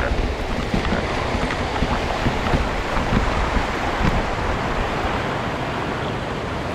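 Water splashing and rushing as a mountain bike rides through a waterfall stream, with wind rumbling on the microphone.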